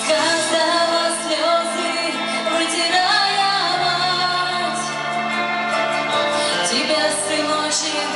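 A song performed live: a singer's held melody over instrumental accompaniment with a steady bass line.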